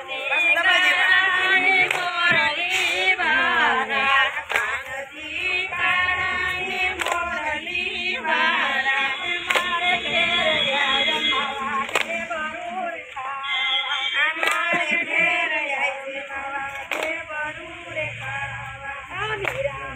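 A group of women singing a Gujarati garba song together in unison, with sharp hand claps about every two and a half seconds keeping the dance rhythm.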